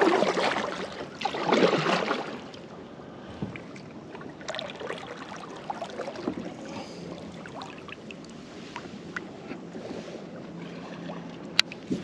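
Kayak drifting on a river: two loud rushes of water in the first two seconds, then quiet lapping with small scattered clicks and knocks on the plastic hull and gear, and one sharp click near the end.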